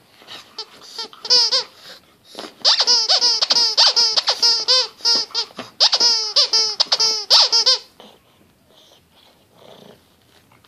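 Pug puppy making rapid high-pitched play yips and grunts in quick runs, about four or five calls a second, a chattering the uploader likens to a Jawa. They stop about eight seconds in, leaving faint rustling.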